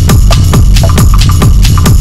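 Upbeat electronic dance music with a steady, driving kick-drum beat, used as aerobic workout music.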